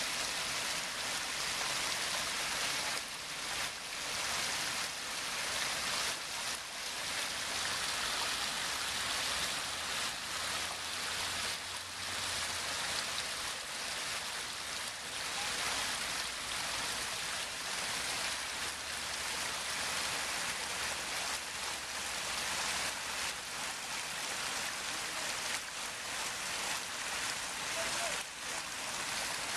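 Water falling steadily down a six-tier waterfall and splashing into a stream and pond, a continuous rushing and splashing.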